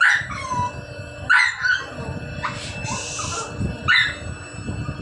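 A dog yelping and whining: four short cries, each dropping in pitch.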